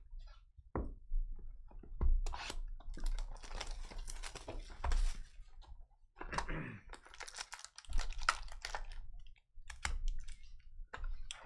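Cardboard hobby box being opened and its foil-wrapped card packs lifted out and set down: an irregular run of light clicks, taps and rustles.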